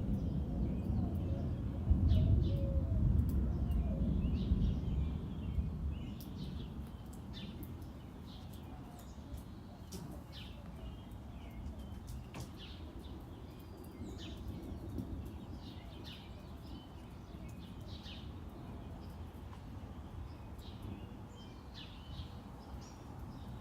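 Small birds chirping, short scattered calls throughout, over a low rumble that is loudest in the first five seconds and then fades to a steady background.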